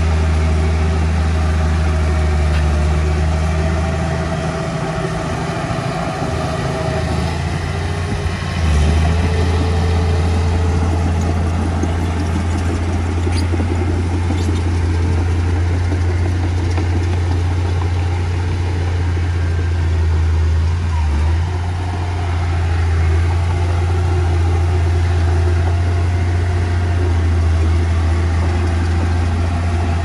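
Diesel engine of heavy earthmoving machinery running with a deep, steady drone. It eases off and picks back up a few times.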